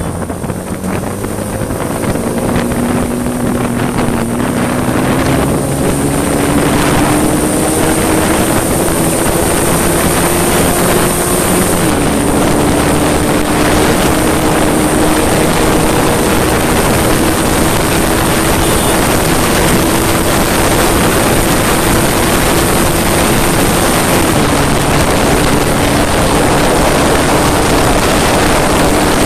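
Motorcycle engine accelerating hard through the gears, with wind rushing over the microphone. The engine note climbs steadily, falls sharply at a gear change about twelve seconds in, climbs again, and falls once more at another gear change about 24 seconds in.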